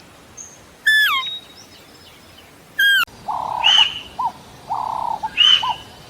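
Deer call sound effect: a high, falling whistled call, heard twice about two seconds apart. From about three seconds in it gives way to a run of warbling, chirping animal calls.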